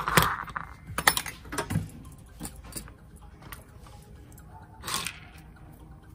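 Small parts and tools being handled on a workbench: a short scrape, then a cluster of clicks and knocks about a second in, and another brief scrape near the end.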